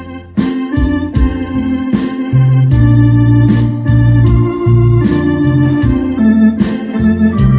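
Electronic organ playing the melody of a slow Korean ballad over held bass notes, with a steady programmed rhythm beat.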